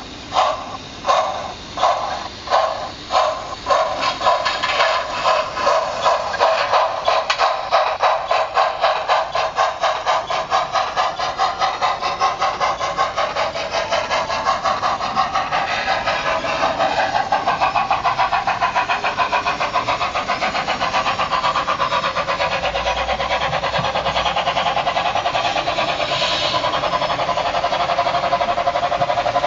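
DCC sound decoder in a Bachmann China RM steam locomotive model playing steam exhaust chuffs through its small speaker. The chuffs start at about two a second and speed up steadily until they run together into a fast, even beat as the locomotive gathers speed.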